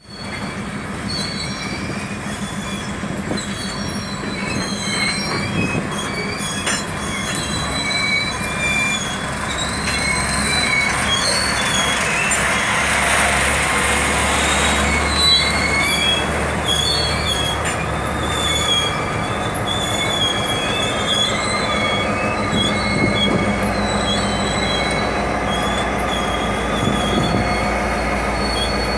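Loaded ore wagons rolling past over a steady rumble, their wheels squealing on the rail in many thin, high squeals that come and go. Near the end the train's rear diesel locomotive, FCCA 539, comes by with its engine running.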